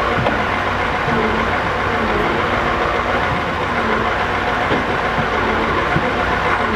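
Scania R650's 16-litre V8 diesel engine idling steadily.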